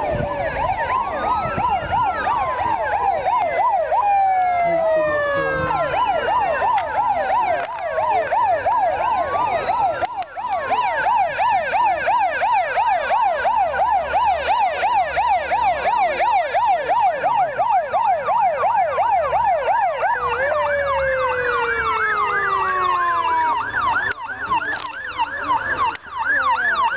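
Several emergency-vehicle sirens sounding at once: a rapid yelp warbling up and down several times a second, overlaid by slower wails that glide down in pitch.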